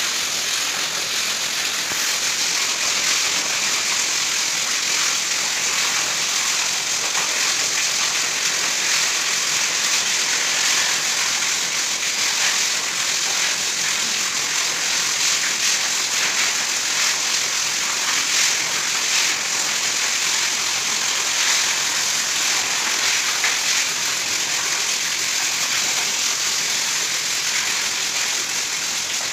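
A steady, even hiss with no breaks.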